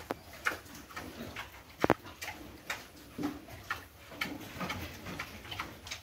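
Pigs moving in a concrete pen: irregular clicking of trotters on the concrete and piglets rooting among leaves, with a few soft low grunts. One sharp knock, much louder than the rest, about two seconds in.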